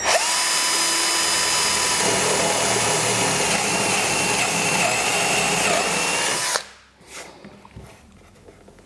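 Power drill boring a 10 mm wood drill bit into Douglas fir, with a steady motor whine. It runs for about six and a half seconds and then stops abruptly.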